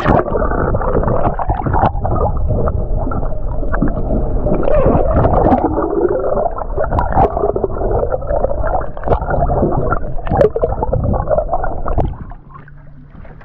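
Muffled water sloshing and gurgling against an underwater camera, with no high end. It stops abruptly near the end and gives way to the quieter sound above water.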